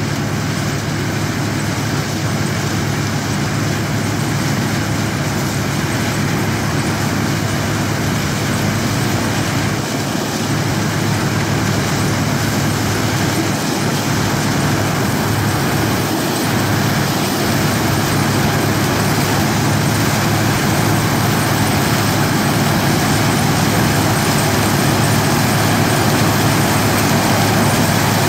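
Massey Ferguson combine harvesting corn: its engine and threshing machinery running steadily under load, a constant drone with a low hum, growing slightly louder as it comes closer.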